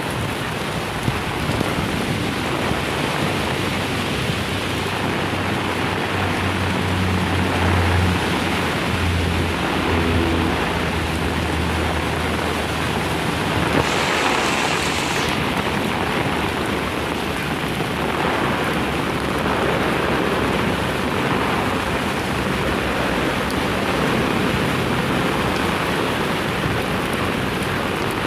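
Heavy rain pouring steadily. A low rumble runs for several seconds about a quarter of the way in, and a louder hiss lasts about a second around halfway.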